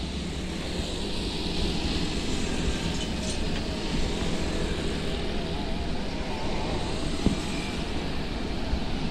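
Road traffic with heavy diesel trucks approaching, their engines running with a steady low rumble over tyre and road noise.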